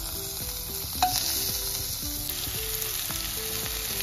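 Smashed boiled baby potatoes in a butter-garlic coating sizzling steadily as they fry in an oiled pan, with one sharp tap about a second in.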